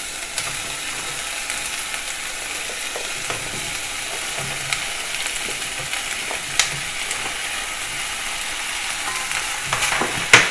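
Garlic, onion and carrot sizzling steadily in hot oil in a pot, with a few light knocks as broccoli and potato chunks go in, and a sharper knock near the end as a wooden spoon stirs.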